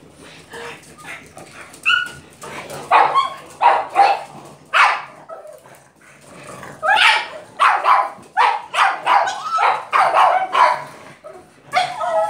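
Pug barking in short, sharp barks: a run of barks about two to five seconds in, then a faster, denser run from about seven to eleven seconds.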